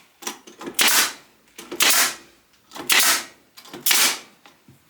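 Staple gun firing staples into a wooden frame to fix stainless steel mesh, four sharp snaps about a second apart.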